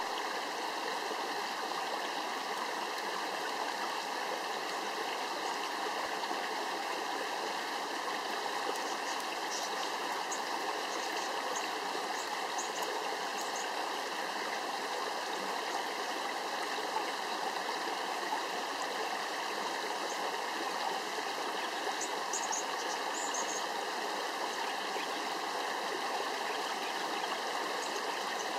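Shallow creek water running steadily over rocks, an even, unbroken babble, with a few faint short high chirps partway through.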